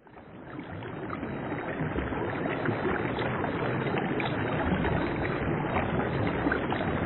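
Steady water ambience, an even rushing hiss that fades in over the first second or two, with faint scattered ticks.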